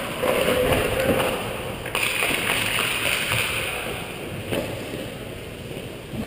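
Ice hockey skate blades scraping and gliding on the ice, heard through a helmet-mounted camera's microphone with rushing air on it. The blade hiss is strongest for a couple of seconds from about two seconds in, then fades.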